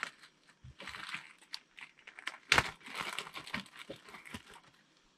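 Plastic packaging bags crinkling, mixed with scattered clicks of hard plastic toy parts being handled. A sharper knock comes about two and a half seconds in.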